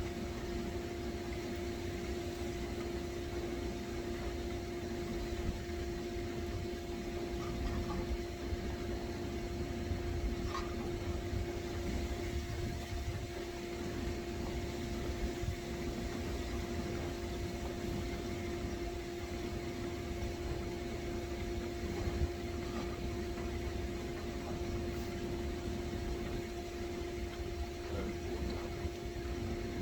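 Steady machine hum holding one pitch, over a low rumbling noise, with a few faint clicks and taps.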